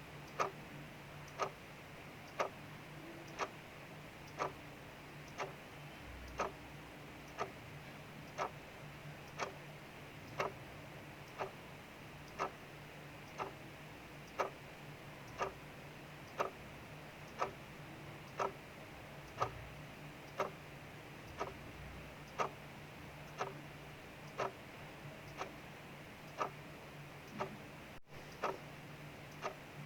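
Clock ticking steadily, about once a second, over a faint steady hiss of rain.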